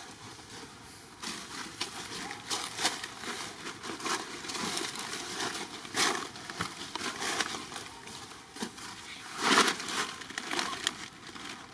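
Dry fallen leaves crackling and rustling in irregular short bursts as monkeys move and shift on them, loudest about nine and a half seconds in.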